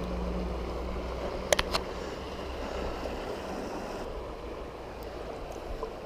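Steady rush of flowing river water with a low rumble underneath, and a few sharp clicks about a second and a half in.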